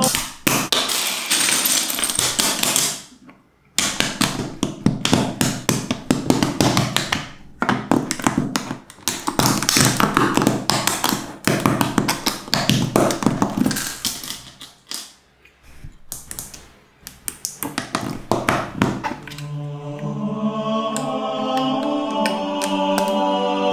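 Mega Construx plastic bricks and tiles being snapped and pressed onto a baseplate: quick runs of clicks and taps, pausing briefly twice. Near the end, choral chant music comes in.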